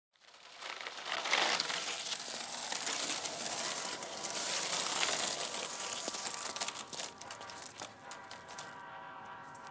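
Skateboard wheels rolling over wet asphalt, a steady rushing noise that comes in suddenly and fades about seven seconds in, followed by a few sharp clicks and knocks as the board stops. A steady hum of several held tones comes in near the end.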